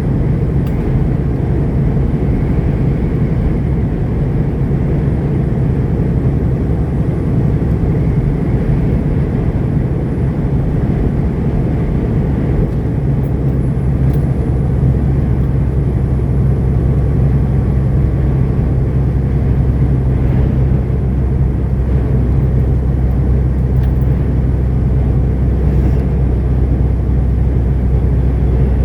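Semi-truck's diesel engine running steadily at highway speed, heard from inside the cab with road noise. The low engine drone grows stronger about halfway through.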